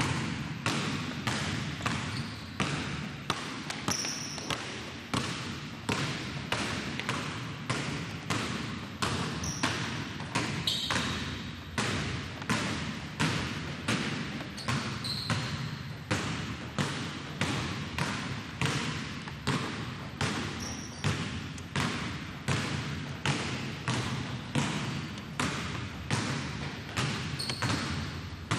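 Two basketballs dribbled on a hardwood gym floor, bouncing together in a steady beat of about one and a half bounces a second.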